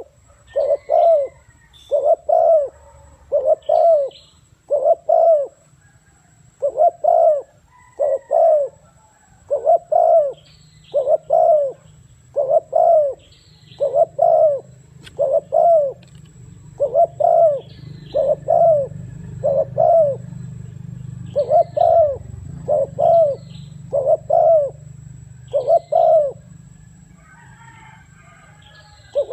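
Spotted dove cooing: short, low coos in quick groups of two or three, repeated over and over with short gaps. Faint higher chirps come in near the end.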